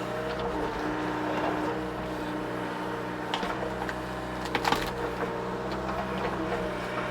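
Mini excavator's diesel engine running steadily while the machine works at tree stumps, with a hydraulic whine that shifts in pitch as it works. A few short knocks come partway through, the loudest about two-thirds of the way in.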